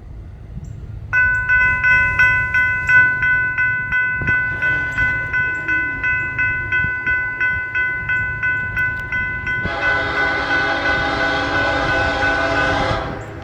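Railroad grade-crossing bell ringing at about three strokes a second, starting about a second in. About ten seconds in, the lead SD70ACe diesel locomotive's air horn sounds one long blast of about three seconds as the train approaches the crossing.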